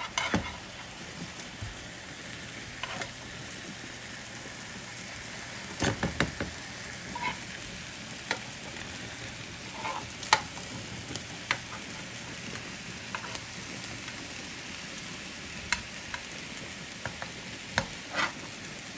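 Sausages sizzling as they fry in a pan, a steady hiss, with scattered clicks and scrapes of a metal slotted spatula against the pan as they are turned.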